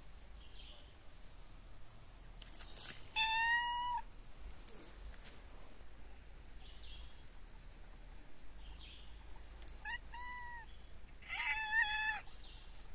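Domestic cat meowing: one high-pitched meow about three seconds in, then a few shorter meows near the end.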